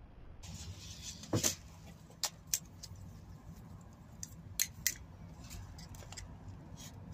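White plastic plant labels being handled, with a handful of sharp clicks and clacks in the first five seconds. Near the end a marker pen starts scratching on a label.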